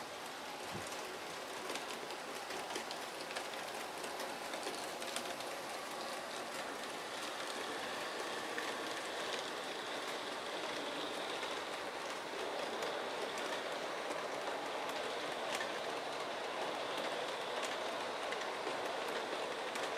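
00 gauge model trains running on the layout's track: a steady rolling hiss of small metal wheels on rail, with faint scattered clicks.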